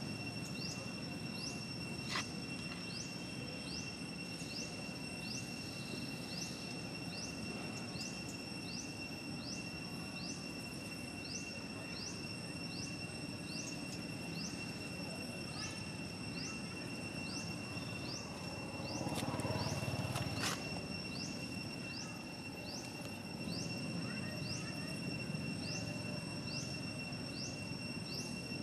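Outdoor insect chorus: two steady high-pitched insect drones, with a short rising chirp repeating a little more than once a second over a low rumble. About two-thirds of the way through comes a brief louder rustling noise with two sharp clicks.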